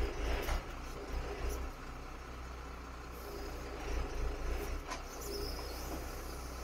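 MAN TGM 18.340 truck's six-cylinder diesel running with a steady low hum while its loader crane works the boom, with a burst of hiss at the start, a couple of brief faint whines, and a sharp click about five seconds in.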